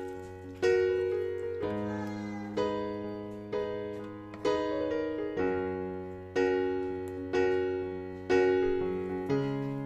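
Background piano music: slow chords struck about once a second, each fading before the next, over held low notes.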